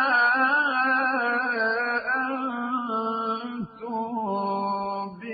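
Male Quran reciter chanting in the melodic mujawwad style, drawing out long ornamented notes that slowly bend in pitch, with a brief pause about three and a half seconds in before the next held phrase.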